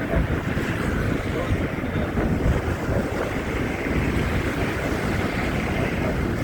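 Wind buffeting a phone's microphone in a snowstorm: a steady rushing noise, heaviest in the low rumble.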